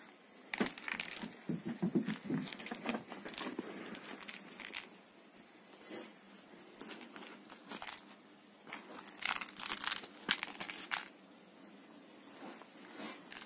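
Scratching and rustling as a cat claws and scrabbles at a furry toy mouse on a fabric sofa cover, in irregular flurries with a few soft thumps. The sounds are heaviest near the start and again around nine to eleven seconds in.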